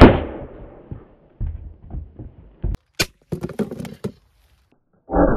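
A single gunshot from a 3D-printed rifle-style gun firing a 3D-printed 8mm round loaded with matchstick powder, sharp and loud, dying away over about a second. Smaller knocks and a sharp click follow, and a short loud burst comes near the end.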